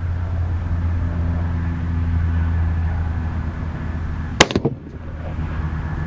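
A single .22-250 rifle shot about four seconds in, sharp and brief, over a steady low mechanical hum.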